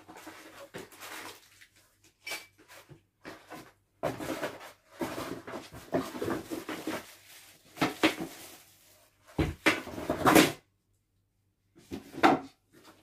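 Parts and packaging of a flat-pack table being handled while it is unboxed: irregular rustling, scraping and knocking of cardboard, plastic wrap and panels, with a heavier thump and a loud rustle near the end.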